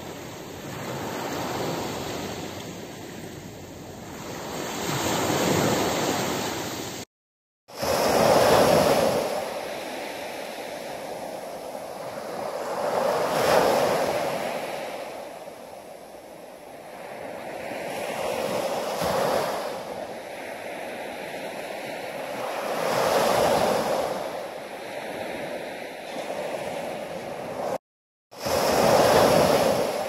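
Small ocean waves breaking and washing up a sandy beach, the surf swelling and ebbing about every five seconds. The sound drops out to silence twice, briefly, about seven seconds in and near the end.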